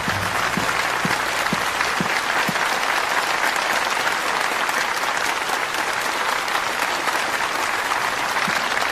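A large audience applauding steadily in a hall; the applause starts suddenly.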